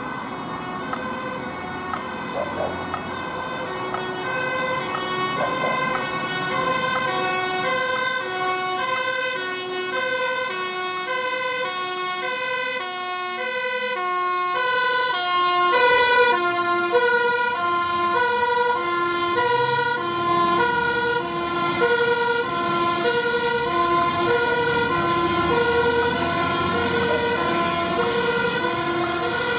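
Dutch fire engine's two-tone siren, alternating steadily between two pitches, growing louder as the aerial ladder truck approaches. It passes close about halfway through, the pitch dropping as it goes by, with the truck's engine heard beneath the siren afterwards.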